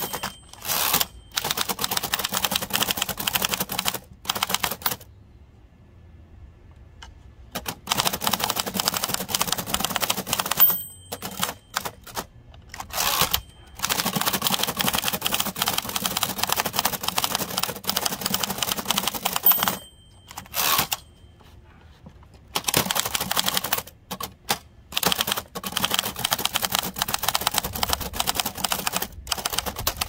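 Fast typing on a 1925 Remington Model 2 portable typewriter: its typebars clack against the platen in quick continuous runs, broken by a few short pauses, the longest about two seconds.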